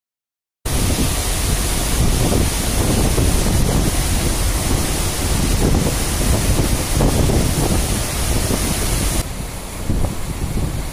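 Wind buffeting a smartphone microphone, a loud gusty rush with a heavy low rumble that starts abruptly about half a second in.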